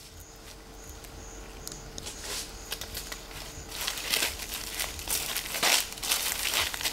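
Dry leaf litter rustling and crackling irregularly as chimpanzees move over it, getting louder and busier about four seconds in. Faint high pips repeat about twice a second over the first few seconds, above a low steady hum.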